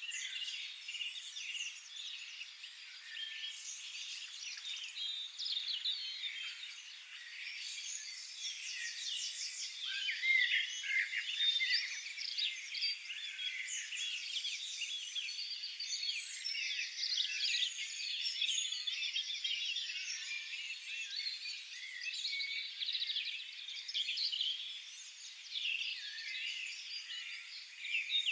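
Chorus of several songbirds singing at once: overlapping chirps, whistles and rapid trills.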